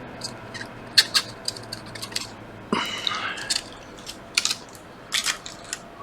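Scrubbing strokes on a laptop logic board as it is cleaned after soldering: irregular sharp scratchy strokes, with a short rising squeak about three seconds in.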